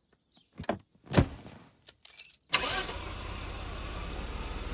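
A few clicks and a heavy thud, then a car running steadily with a low, even hum, heard from inside the cabin as it drives.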